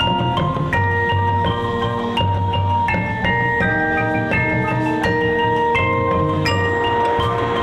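Marching show band playing: a quick, note-by-note melody in mallet percussion over low sustained tones.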